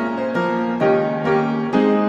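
Background piano music: a slow, gentle melody with a new note or chord struck about twice a second.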